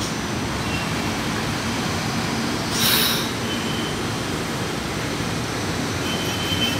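São Paulo Metro Line 1 subway train slowing alongside the platform, its running gear giving a steady rumble. There is a brief loud hiss about three seconds in and a faint high squeal near the end as it comes to a stop.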